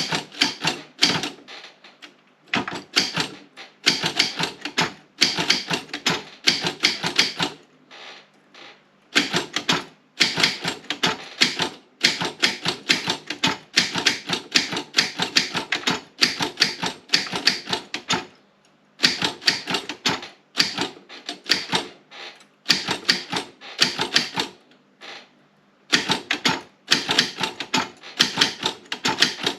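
Optima M16 manual office typewriter being typed on: runs of rapid keystrikes, the typebars clacking against the platen, with several short pauses between bursts.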